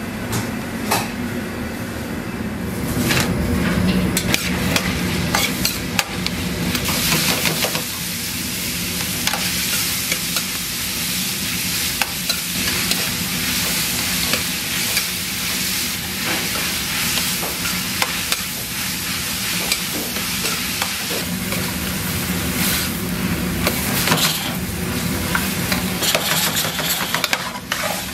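Diced onion, potato, carrot and ham sizzling as they are stir-fried in a pan, with a spatula stirring and scraping the pan.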